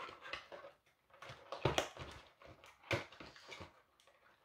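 Packaging of a diamond painting kit rustling and crinkling in irregular bursts as it is being opened by hand.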